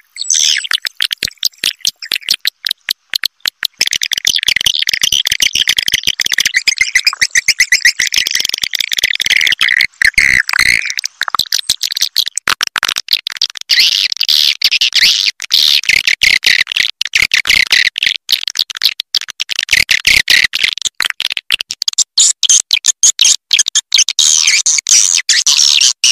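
Swiftlet lure-call recording of edible-nest swiftlets twittering: a dense, unbroken chatter of rapid high chirps and clicks, the kind of call track played from swiftlet houses to draw the birds in to roost and nest.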